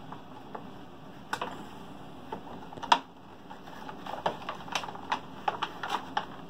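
Clear plastic blister packaging clicking and crackling as hands press toy figures back into it on its card backing: scattered clicks with one loud one about three seconds in, then a quicker run of clicks from about four seconds.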